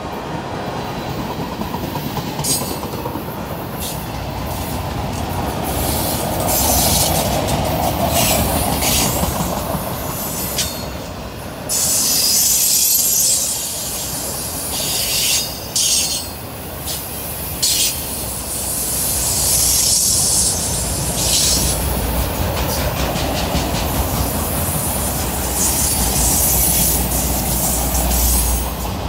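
Freight train cars rolling past close by, tank cars giving way to autoracks, with a steady rumble and clatter of wheels over the rails. A high-pitched wheel squeal rises and falls away in several stretches.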